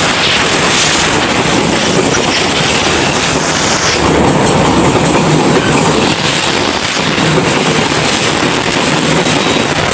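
Train running past on the rails: a loud, steady rush of wheel and track noise.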